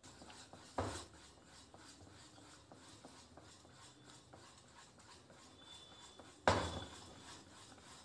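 Wire whisk beating thick banana bread batter in a ceramic bowl, working in freshly added oil: a faint run of soft taps and scrapes, with two louder knocks, one about a second in and one near the end.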